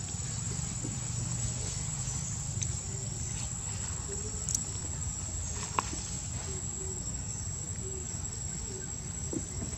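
A steady high-pitched insect drone over a low rumble. In the second half a string of faint, short low tones repeats, and two sharp clicks come near the middle.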